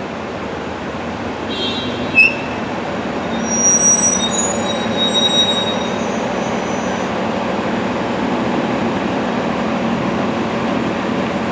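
City transit bus moving past close by in street traffic, its brakes squealing in several thin high tones for a few seconds, with a sharp squeak about two seconds in. The squeal fades by about seven seconds in, leaving a steady traffic rumble.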